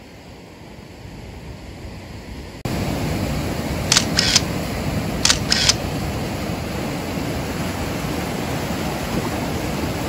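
Camera shutter clicks, four in two quick pairs about a second apart, over a steady rush of surf that cuts in suddenly about two and a half seconds in.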